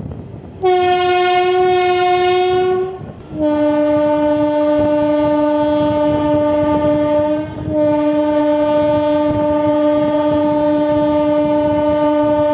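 Locomotive horn of a moving Indian Railways express: a short higher blast of about two seconds, then a long lower blast lasting about ten seconds with a brief break in the middle. Underneath is the rumble of the coaches running on the track.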